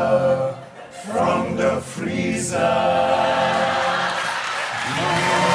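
Male a cappella choir singing isicathamiya-style close harmony: three short sung phrases, then a long held final chord.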